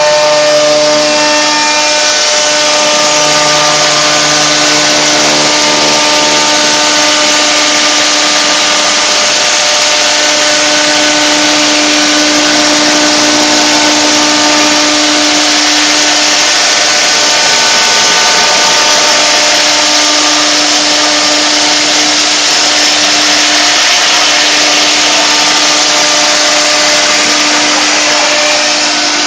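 A CNC router's 6 kW water-cooled spindle milling 3 mm aluminum plate: a loud, steady cutting noise over the spindle's constant whine. Several steady tones come and go every few seconds as the cut goes on.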